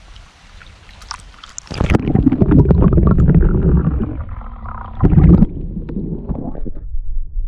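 Muffled water sloshing and gurgling against a camera dipped into a trout stream: faint stream hiss at first, then a loud low rumble with crackles about two seconds in as the camera goes under, surging again about five seconds in and easing to a steady underwater rumble.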